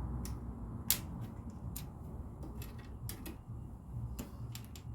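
Plastic LEGO pieces clicking and tapping as they are handled and pressed together: a scatter of small, irregular clicks, with one sharper click about a second in.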